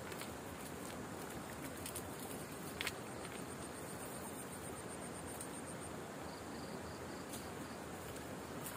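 High, evenly pulsed insect call, about five pulses a second for several seconds, over a steady background hiss. A sharp click or knock comes about three seconds in.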